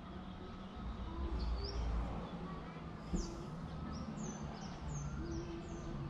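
A small bird giving short, high chirps, a quick run of them in the second half, over a steady low background rumble. A single sharp click comes about three seconds in.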